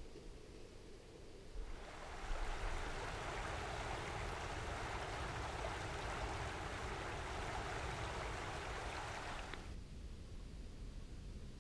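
Running water of a small stream, a steady rushing hiss that cuts in about two seconds in and cuts off abruptly near the end, over a faint low rumble.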